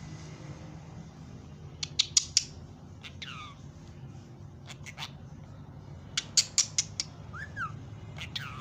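Pet budgerigars chirping: quick clusters of sharp, short calls about 2 s in and again around 6 to 7 s, with a few chirps that slide down in pitch and a short warble in between, over a steady low hum.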